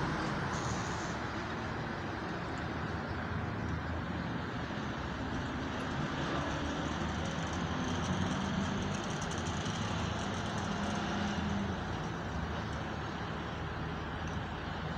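Steady rumble and hiss of distant road traffic.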